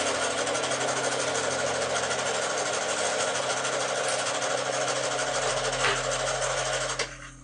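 Electric sewing machine running at a steady fast speed, its needle stitching through fabric with a rapid, even rhythm of strokes, then stopping abruptly near the end.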